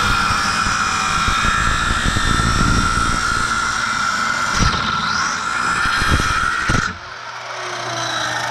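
Corded circular saw running at full speed and cutting through a new pressure-treated board: a steady high motor whine over the rasp of the blade in the wood. About seven seconds in the cut ends, the trigger is released, and the blade spins down with a falling hum.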